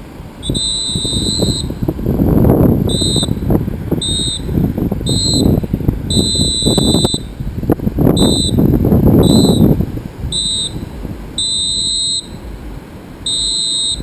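Electronic beeping: a steady high tone sounding in an uneven pattern of long and short beeps, about ten in all. Underneath, wind buffets the microphone with a low rumble that swells twice.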